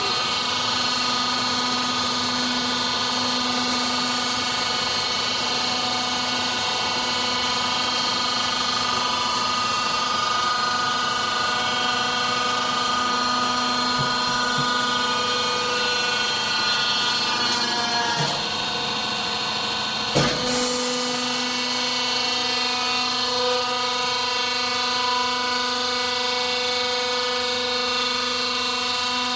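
Hydraulic power unit of a vertical oil-drum baler running with a steady hum and whine. A little past halfway its tone dips briefly, and about two-thirds of the way in there is a single sharp bang before it runs on steadily.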